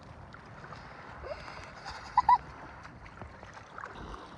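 Small waves lapping at a sandy shoreline, with wind on the microphone. About two seconds in, two short, sharp high-pitched chirps sound close together, louder than the water.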